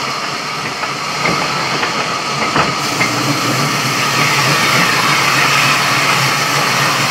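Sawmill machinery running with a loud, steady mechanical din and a low hum, with a couple of sharp knocks in the first three seconds.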